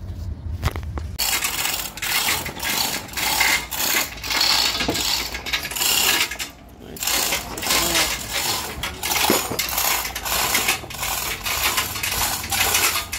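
Hand chain hoist being worked with an engine hanging from it, its chain rattling and clinking in uneven bursts that start about a second in, with a short pause near the middle.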